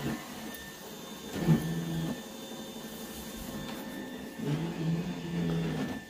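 iRobot Roomba 960 robot vacuum running on carpet, its motors giving a steady whir with two stretches of a louder hum, briefly about a second and a half in and again from about four and a half seconds in until near the end, as it manoeuvres over a phone charging cable.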